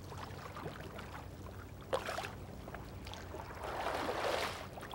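Double-bladed kayak paddle dipping and swishing through calm water, with a sharp splash about two seconds in and a louder, longer swish near the end.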